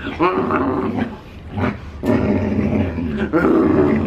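A large husky-type dog grumbling and growl-talking during a hug, a string of drawn-out calls that bend up and down in pitch.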